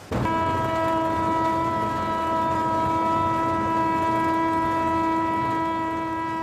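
A train's horn sounding one long, steady blast of about six seconds, starting abruptly.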